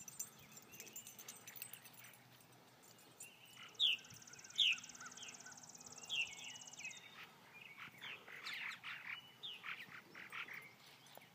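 Purple martins calling: scattered short chirps, two loud ones about four seconds in, then a busier run of calls near the end.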